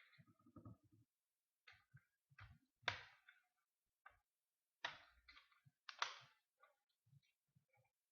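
Sharp plastic clicks and snaps as a laptop's plastic screen bezel is pried loose with a flathead screwdriver, its clips unsnapping, with a few soft knocks of handling. The loudest snaps come about three and six seconds in.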